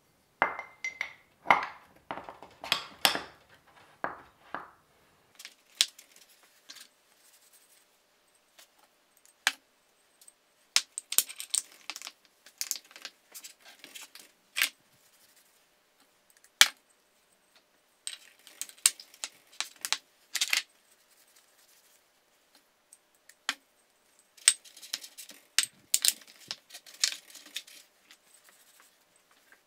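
Steel connecting rods and pistons from a BMW M52 engine build clinking and knocking against each other and the bench as the rods are fitted into the pistons. Sharp metallic clicks come in groups, with a brief ringing tone near the start.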